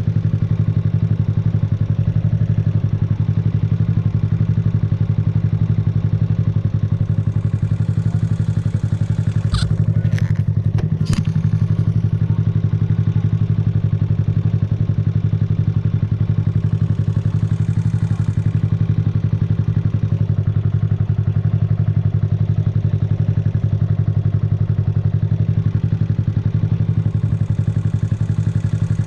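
Yamaha YZF-R125's 125 cc single-cylinder four-stroke engine idling steadily, its pitch unchanging. About ten seconds in come three sharp clicks in quick succession.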